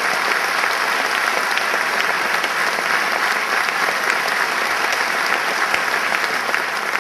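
Theatre audience applauding steadily, a dense even clapping at a curtain call.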